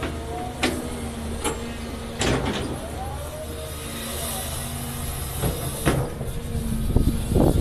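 Caterpillar 336 Next Gen hydraulic excavator working: its diesel engine runs steadily under a hydraulic whine that rises and falls as the boom and bucket move. Sharp clunks and a clattering burst come from the bucket and falling rock, and near the end a loud scraping crunch as the bucket digs back into the clay and stone.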